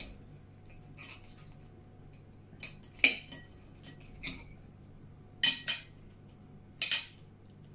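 Knife and fork cutting into a crisp pastry parcel, clinking and scraping on the plate in a handful of short, sharp strokes. The loudest comes about three seconds in, and there are two quick pairs later on.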